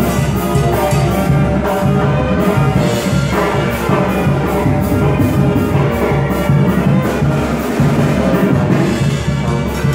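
Loud live Mexican brass band (banda) music, with a sousaphone carrying a pulsing bass line under the horns and a steady dance beat.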